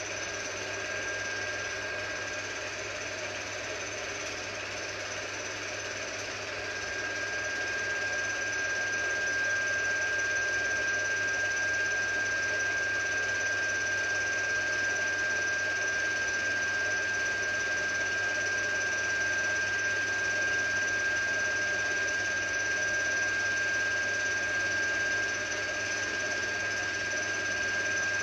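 16mm film projector running: a steady mechanical whir with a constant high whine, getting a little louder about seven seconds in.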